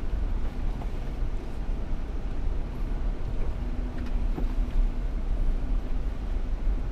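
A 4x4's engine and drivetrain rumble low as it moves slowly along an off-road trail, with a few light knocks and a short whine about halfway through.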